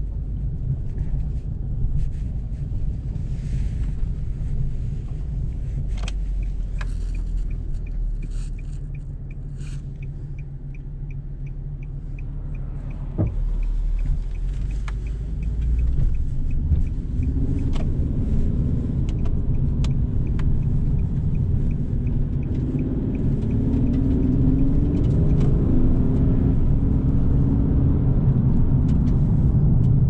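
A 2009 Nissan 370Z's 3.7-litre V6 heard from inside the cabin, running low and steady while a turn-signal indicator ticks regularly for several seconds. After the turn the engine pulls away and gets louder, its note rising and stepping in pitch as the automatic gearbox shifts up.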